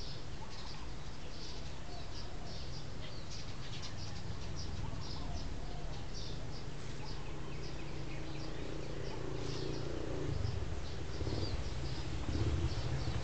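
Small birds chirping in quick, short calls again and again, over a low rumble on the microphone that grows louder near the end.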